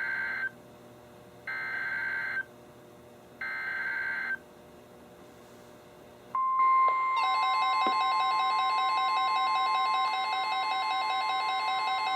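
NOAA Weather Radio SAME alert header: bursts of warbling digital data screech, about a second each with a second's gap, the last of three ending about four seconds in. About six seconds in, the steady 1050 Hz weather radio warning alarm tone starts, and a moment later a bank of weather alert radios sets off their own alarms, a mix of repeating electronic beeps over the tone.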